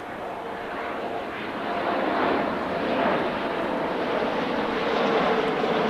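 Boeing 777-9 airliner's two GE9X turbofan engines during a low display pass overhead: a steady rushing jet noise with a faint held tone that drifts slightly lower, growing louder about two seconds in.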